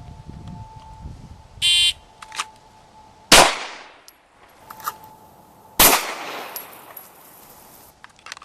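A shot timer beeps once, and about a second and a half later a pistol fires a single shot drawn from the holster. A second, equally loud gunshot follows about two and a half seconds after that.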